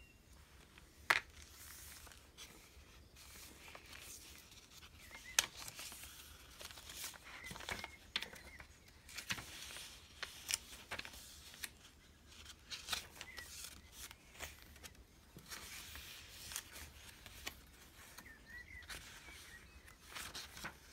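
Paper pages of a handmade junk journal being turned and handled: soft rustling with scattered sharp taps, the two loudest about a second in and about five seconds in.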